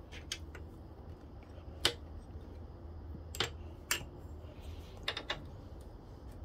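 Scattered sharp metal clicks and taps, irregularly spaced, with a quick run of three about five seconds in: a screwdriver working in an engine mounting hole, levering a motorcycle engine up in its frame to line it up with the mounting bolt. A low steady hum runs underneath.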